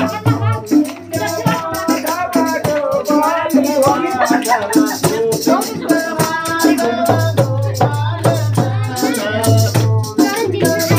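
Devotional kirtan: group singing of a bhajan over a jingling chimta (iron fire tongs with metal rings) and a hand drum keeping a steady, fast beat.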